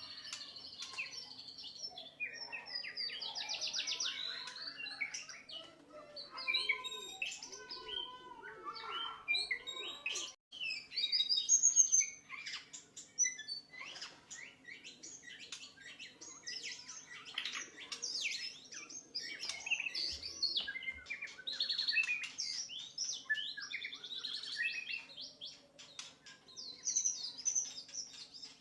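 White-rumped shama (murai batu) singing a long, varied song of rapid whistles, trills and chattering phrases, over a faint steady hum.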